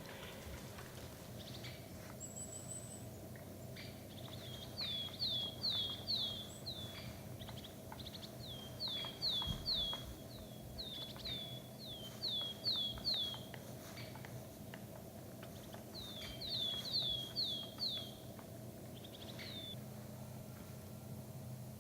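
A bird calling in four short runs of four or five sharp, down-slurred notes each, about three notes a second, with scattered faint clicks between.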